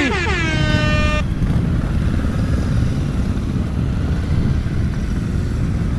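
Motorcycle engine running at low speed, a steady low rumble from the rider's own Triumph and the bikes around it. For about the first second a tone slides down in pitch, holds, then cuts off abruptly.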